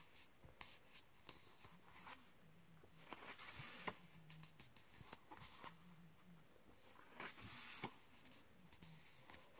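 Faint paper rustling and flicking as pages of a square colouring book are turned one after another, with louder page sweeps about three seconds in and again about seven seconds in.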